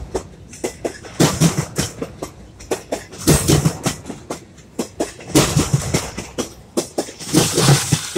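Intermodal freight cars rolling past, their steel wheels clacking over a rail crossover, with loud clusters of hits about every two seconds as each set of trucks crosses it. The owner blames the noise on a slight bow in the rail at the crossover.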